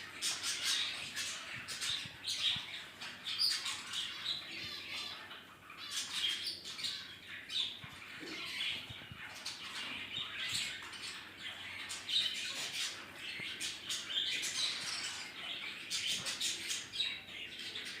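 Finches bathing in a tub of water: rapid wing fluttering and splashing, with frequent chirps and squawks throughout.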